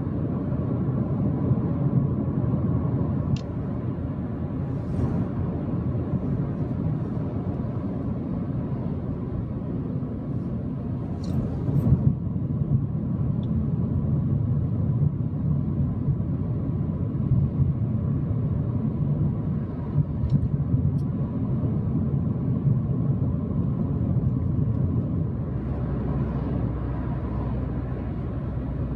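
Steady road and engine rumble of a car cruising on a highway, heard from inside the cabin, with a few faint brief clicks.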